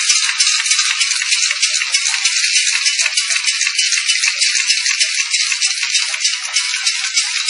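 Sticker labeling machine running, a continuous fast rattling and clicking with no low rumble.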